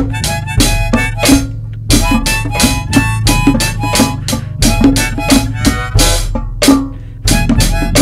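Blues-rock band song: harmonica over a steady drum beat, bass and guitar. A little after seven seconds the band comes back in louder after a brief dip.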